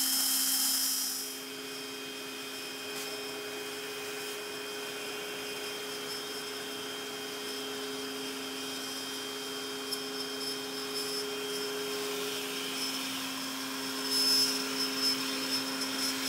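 Makita trim router on a Shapeoko 3 XXL CNC machine running steadily as its bit engraves an MDF plaque, a constant hum with a high whine. It is louder and hissier at the start and again from about 14 seconds in.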